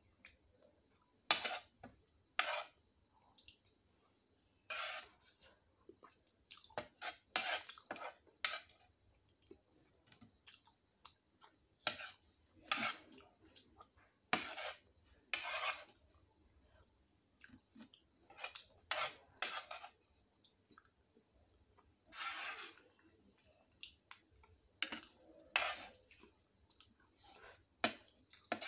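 Metal spoon scraping and clinking against plates as leftover chole gravy is scooped up, in irregular strokes a second or two apart, mixed with eating sounds.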